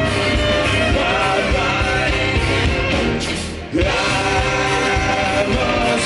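Live rock band playing through a PA: acoustic and electric guitars, drums and keyboard, with a sung lead vocal. The music drops briefly about three and a half seconds in, then the full band comes straight back in.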